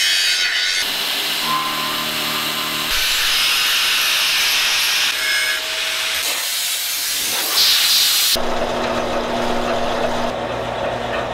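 Metal-cutting tool sounds in quick cuts: an angle grinder cutting steel with a loud, high hiss. From about eight seconds in, a horizontal band saw cuts through aluminium round stock with a lower, steady hum.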